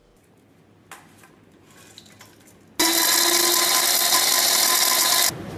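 Stainless-steel electric high-speed herb grinder switched on nearly three seconds in, running with a loud, steady whir for about two and a half seconds, then cut off abruptly, its blades grinding dried medicinal herbs to a fine powder.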